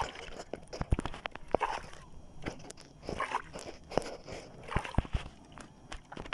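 Irregular clicks and knocks with short crunching rustles from a jigging rod and a Shimano Ocea Jigger reel being handled and cranked against a hooked fish.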